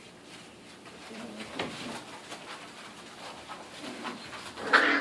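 Five-week-old pit bull puppies giving a few short whimpers, the loudest near the end.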